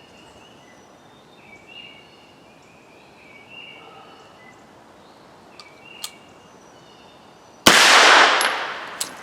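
A single gunshot from a 9mm AR-style carbine firing factory MagTech ammunition, about three quarters of the way in: a sharp crack with a ringing tail lasting over a second. The round is supersonic, clocking 1,333 fps on the chronograph.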